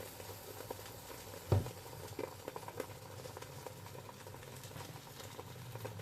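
Bánh xèo batter frying in oil in a covered pan: a faint, steady sizzle with scattered small crackles. A single knock comes about a second and a half in.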